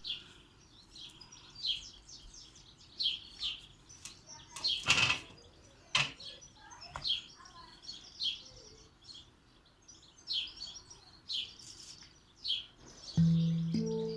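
Songbirds chirping again and again in short calls, with a brief burst of noise about five seconds in and a click a second later. Near the end a Djangar handpan in E Romanian Hijaz is struck and a low note rings on.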